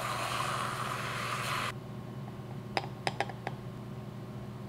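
Handheld battery milk frother whirring in milk and heavy cream, whipping cold foam; it stops abruptly about a second and a half in. A few light clicks follow about three seconds in.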